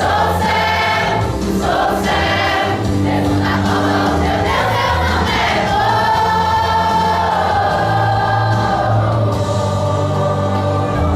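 A choir singing a gospel song with instrumental backing, sustained low notes under the voices.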